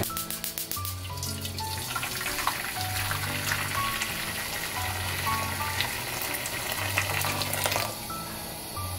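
A stream of hot water pouring and splashing into a nonstick frying pan, filling it, until the pour stops about eight seconds in. Background music plays throughout.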